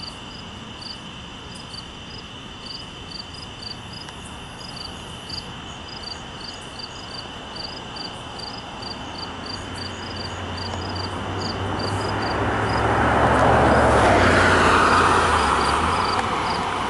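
Crickets chirping steadily in a fast, even pulse. Past the middle a motor vehicle's low engine hum and rushing noise build up, are loudest a couple of seconds before the end, then ease off.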